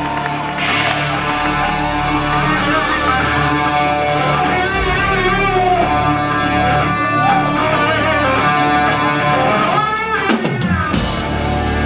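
Live rock band heard through the PA from within the crowd: a double-neck electric guitar leads with sustained, bending notes over a low held bed. Near the end it makes a steep falling pitch dive, followed by a loud crash.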